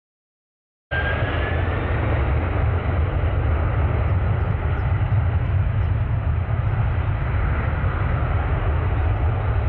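Jet airliner engines on landing approach, a steady rumbling noise that starts abruptly about a second in after a short silence.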